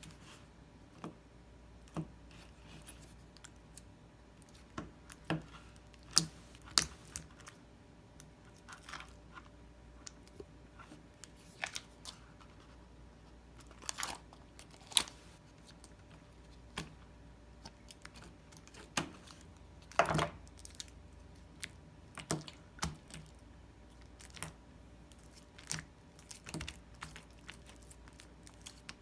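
Slime being handled by hand, giving irregular sharp clicks and crackles, with a few louder snaps around six, fifteen and twenty seconds in.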